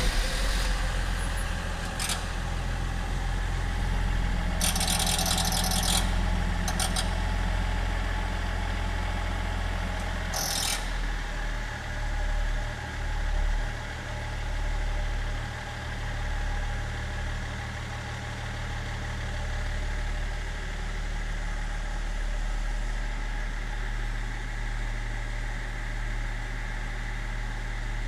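BMW 330d E46 straight-six diesel idling just after starting, with a few short hissing bursts in the first eleven seconds before it runs on steadily; this is the strange noise on starting that the owner is showing.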